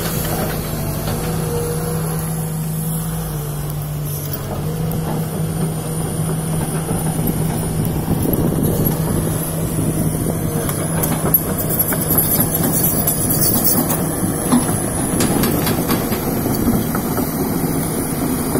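Sumitomo SH210 hydraulic excavator's diesel engine running with a steady hum, working harder and louder from about halfway as the boom and bucket move, with a few sharp knocks in the second half.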